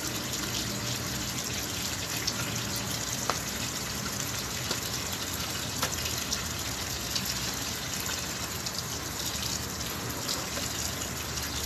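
Water running steadily from a tap, with a couple of light knocks as clothes are hand-washed in a basin.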